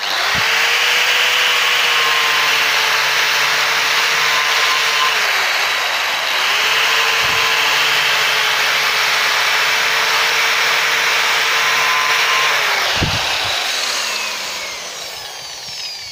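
Electric angle grinder spinning a CD in place of a cutting disc, cutting into a banana. It starts suddenly and runs with a steady whine, whose pitch sags briefly about five seconds in and again near twelve seconds. About thirteen seconds in it is switched off and the whine falls away as it spins down.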